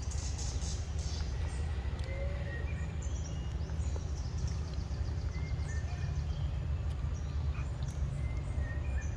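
Forest ambience: short, high bird chirps and whistles come again and again over a steady low rumble.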